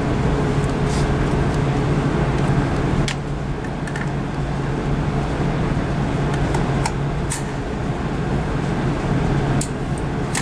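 Steady rushing noise with a low hum from the indoor range's ventilation, and a few sharp light clicks as the rifle is handled.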